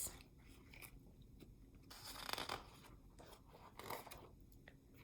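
Faint rustle and swish of a picture book's paper page being turned, with a few light clicks of handling.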